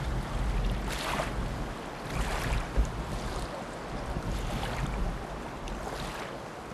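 Wind buffeting the microphone outdoors: a deep rumble with rushing gusts that rise and fall.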